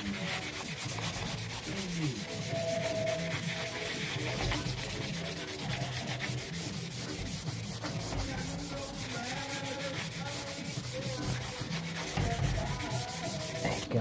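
Medium-grit abrasive sponge pad rubbed by hand in quick back-and-forth strokes over a wet slate clock case, a steady scratchy rasp as the old black finish is sanded off down to the bare slate.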